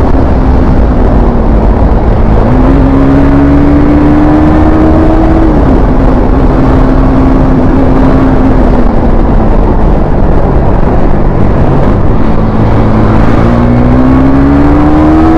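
KTM Duke 390's single-cylinder engine running at road speed under heavy wind noise. Its pitch dips right at the start, climbs about two and a half seconds in, falls near five and a half seconds and again around ten seconds, then climbs once more from about thirteen seconds as the throttle is rolled off and back on.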